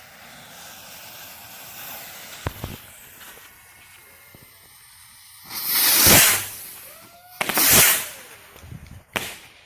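Consumer fireworks going off: a steady hiss, then a sharp crack about two and a half seconds in. Two loud rushing bursts, each about a second long, follow around the middle, and a shorter one comes near the end.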